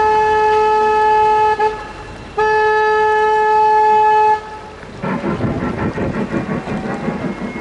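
Tour boat's horn sounding two long, steady blasts, each about two seconds, with a short gap between them. It warns other boats at a blind spot. A few seconds of noisy crackle follow.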